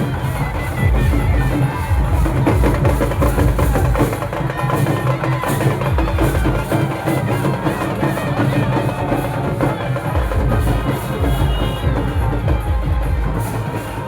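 Loud Nagpuri music with a heavy, steady drum beat.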